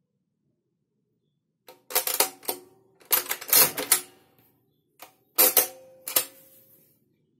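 Soviet VK-1 keyboard arithmometer's registers being cleared by its levers: three bursts of rapid metallic clicking and clacking. The last burst, about five and a half seconds in, returns the result register to zeros.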